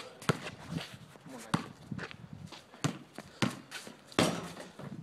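A basketball bouncing on an asphalt driveway: about five sharp slaps at uneven intervals, roughly a second apart.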